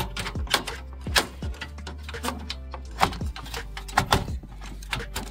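Irregular clicks and knocks of metal and plastic as a low-profile graphics card is worked down into a desktop PC's PCI Express slot and its metal bracket meets the case.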